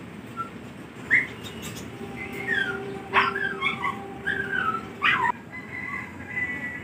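Kitten mewing: a string of short, high-pitched cries, each falling in pitch, repeated several times.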